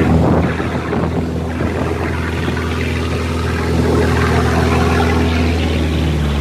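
Boat's Nissan 2500 cc diesel engine running at a steady, even speed under way, on a test run after new injectors were fitted and the air bled from the fuel system, with water rushing past in the wake.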